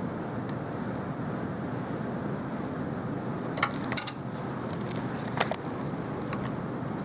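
Steady background hiss with two quick clusters of sharp clicks a little past the middle and a single click near the end.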